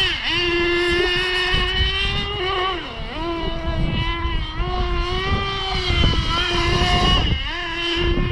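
Small nitro engine of a Kyosho Inferno GT2 1/8-scale RC car, running at high revs with a high, buzzing note. The revs drop and climb back a few times as the throttle is let off and opened up again.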